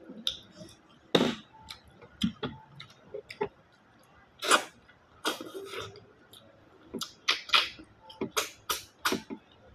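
Close-up sucking and slurping as cooked freshwater snails (bisukol) are sucked out of their shells by mouth. Sharp wet sucks and small clicks come at irregular intervals, more often in the second half.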